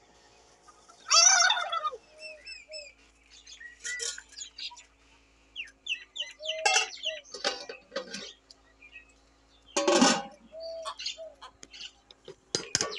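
A young goat kid bleats once about a second in, then small birds chirp in short high calls. A loud, brief clatter comes about ten seconds in, with a few clicks near the end.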